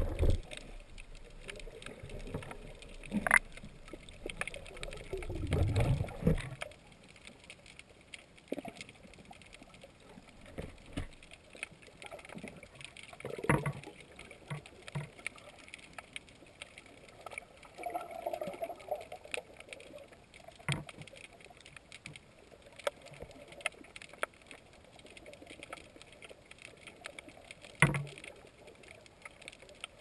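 Sea water heard from a camera underwater along a rocky shore. Low, muffled surging and rumbling for the first six seconds or so, then a quieter wash broken by scattered sharp clicks and knocks, the loudest about 13 and 28 seconds in.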